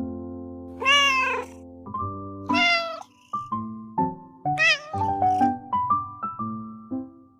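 A kitten meowing three times, each a short cry that bends in pitch, over light background music.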